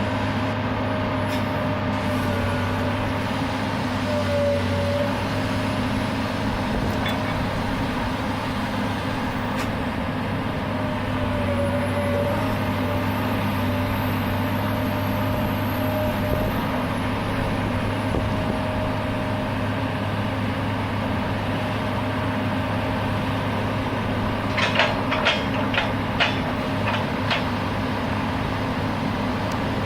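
Komatsu PC200LC-8 hydraulic excavator's six-cylinder diesel running steadily, with a wavering whine over the engine note. Near the end comes a quick run of sharp metallic clanks.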